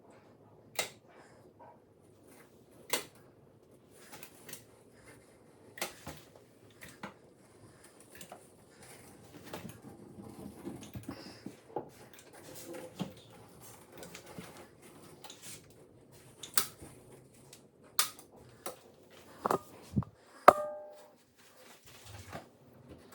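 Sparse clicks and light knocks of a manual caulk gun and hand tools while sanded tile caulk is run along the countertop-to-backsplash joint. A brief pitched squeak about twenty seconds in is the loudest sound.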